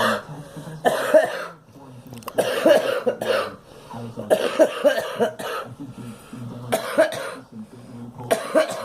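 A girl coughing in repeated bouts, about six in the stretch, some of them clusters of several coughs in quick succession, with short pauses between.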